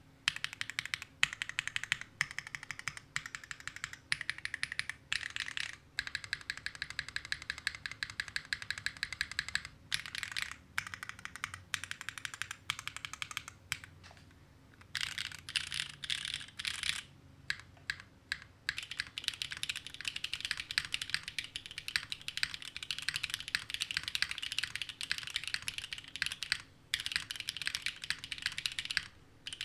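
Continuous fast typing on a Neo60 Core mechanical keyboard fitted with Gateron Sage linear switches, a dense run of keystroke clacks broken by a couple of brief pauses.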